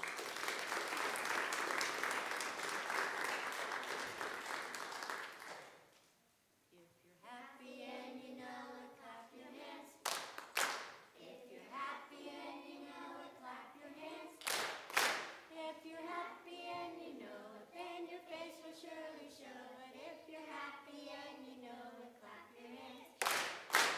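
Applause for about five seconds, then a group of children singing unaccompanied, with a few sharp hits cutting through the song.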